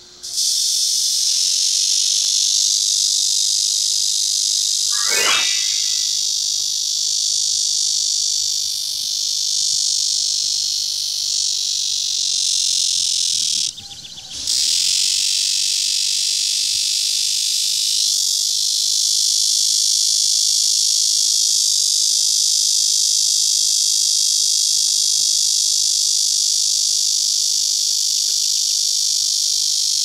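Cicadas singing: a loud, steady, high-pitched buzz. A short rising chirp cuts in about five seconds in, and the buzz breaks off for a moment about fourteen seconds in before it resumes.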